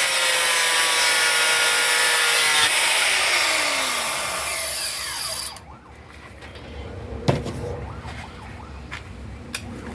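Power tool cutting steel rebar: a loud, bright grinding with a steady whine that slides down in pitch and stops about five and a half seconds in. A sharp metallic knock follows about two seconds later.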